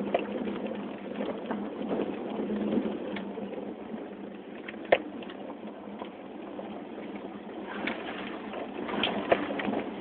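Cabin noise inside a 2005 Toyota 4Runner crawling over a rocky dirt trail in four-wheel low: steady engine and drivetrain drone. There is a sharp knock about halfway through and a few lighter knocks near the end as the body and suspension take the bumps.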